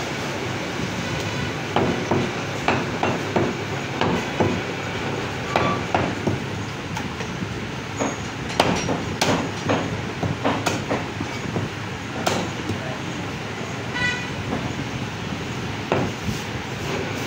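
Meat cleaver chopping pieces of mutton on a wooden log chopping block: irregular sharp chops, sometimes several in quick succession, over a steady background din.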